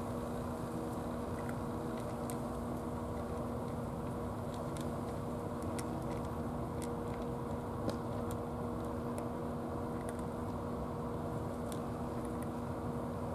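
A cat chewing its food, heard as faint, irregular small clicks over a steady engine-like drone with a low hum.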